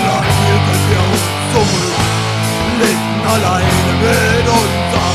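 Punk rock song with electric guitars over a steady drum beat, in a stretch where no words are sung.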